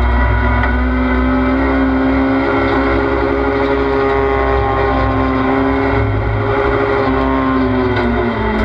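Race car engine running hard at high revs, heard from inside the cockpit, pitch holding fairly steady with small shifts as the throttle changes. Near the end, pitch and level dip briefly.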